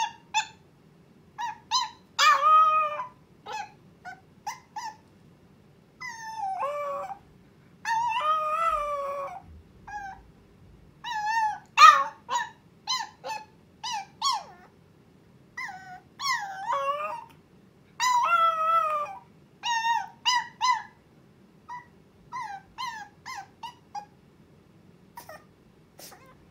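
Long-coat Chihuahua puppy howling and whining: a string of short, high-pitched yips and whimpers broken by several longer, wavering howls, with short pauses between. These are the distress calls of a puppy left home alone, crying for its owner.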